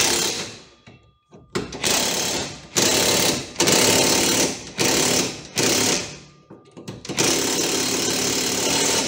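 Cordless impact wrench hammering the 19 mm lower rear shock-absorber bolt tight, in about half a dozen short bursts and a final burst of about two seconds near the end.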